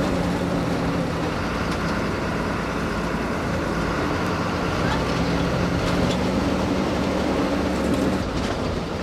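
TNSTC government bus's diesel engine running steadily under way, heard from inside the cabin, with a few light clicks and rattles. The sound dips slightly near the end.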